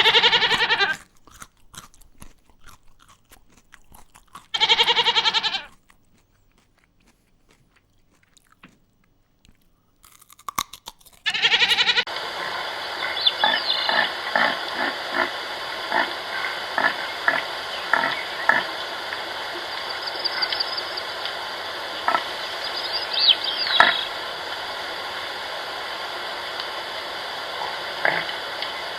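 Pigs: a few short pitched squeals in the first dozen seconds. Then, from about twelve seconds in, a steady noisy background with many short grunts, cutting off just before the end.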